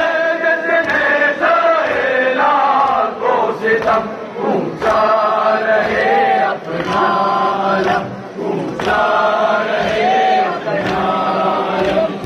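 A group of men chanting together in long, held phrases with short breaks between them.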